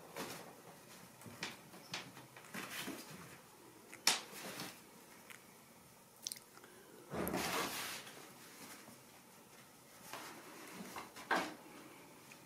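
Ragdoll kittens playing in and around a fabric pop-up play tunnel: scattered light rustles, scratches and soft taps from their paws and the tunnel fabric, with a louder rustle lasting under a second about seven seconds in and a sharp tap near the end.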